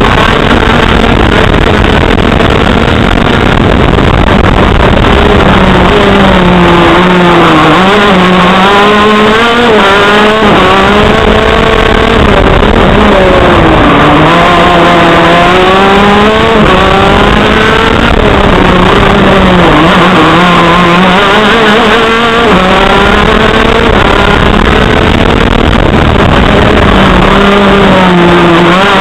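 TM KZ10C 125 cc two-stroke shifter-kart engine at racing pace, heard from on board: loud, its pitch climbing under acceleration and dropping sharply again and again as the kart goes through the corners.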